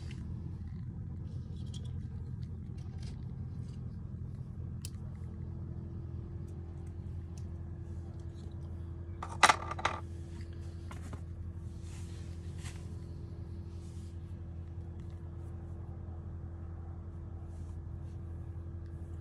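Small clicks and rattles of carp-fishing tackle being handled, with a sharp knock about halfway through and a lighter one just after, over a steady low hum.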